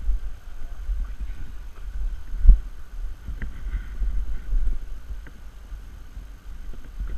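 Low, uneven rumble of wind and handling noise on a GoPro action camera, with faint scuffs and one sharp knock about two and a half seconds in.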